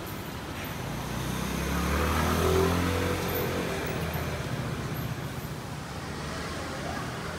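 A motor vehicle passes close by on the street, its engine sound swelling to a peak about two and a half seconds in and then fading, over steady traffic noise.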